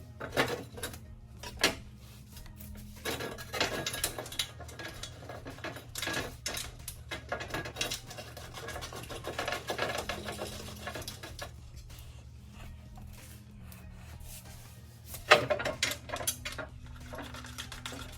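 Clinks, knocks and rubbing of hard objects being handled, over a steady low hum, with a sharp knock about fifteen seconds in.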